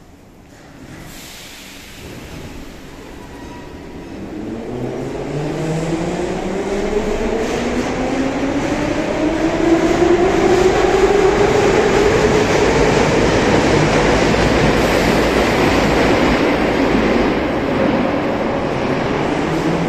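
81-717/714 metro train pulling out of the station. Its traction motors whine upward in pitch as it gathers speed, over a rising rumble of wheels, and a new rising whine starts near the end.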